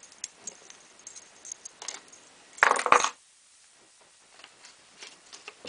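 Small metallic clicks and clinks of a brass profile cylinder lock and its key being handled, with a louder burst of metal clinking about two and a half seconds in.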